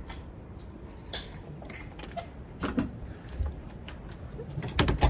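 Scattered light clicks and knocks of handling and movement, with the loudest cluster near the end.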